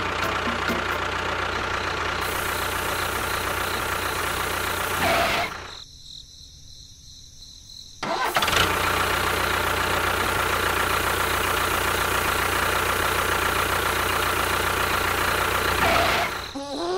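Steady engine-like running sound for a miniature model tractor. It drops away about five and a half seconds in, comes back a couple of seconds later and runs on until near the end.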